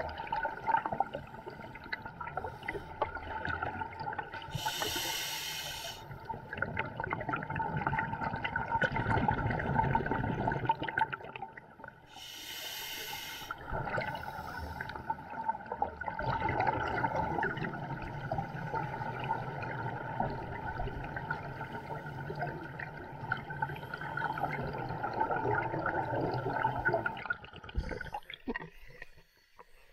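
Scuba regulator breathing heard underwater: two sharp hissing inhalations several seconds apart, with long rushing, bubbling exhalations between and after them. The sound drops off near the end.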